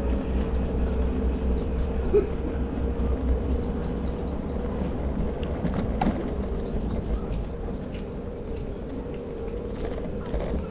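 Steady low rumble of city street noise, fading slowly, with a faint click about two seconds in and another about six seconds in.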